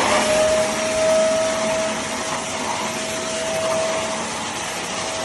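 PowerPac bagless cyclone vacuum cleaner running steadily: a constant rush of air with a steady whine from the motor.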